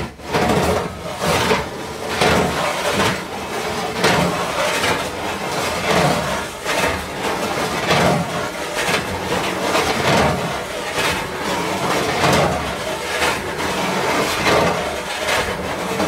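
Metal sheets sliding and scraping against one another in repeated strokes, roughly one a second, with no pause between them.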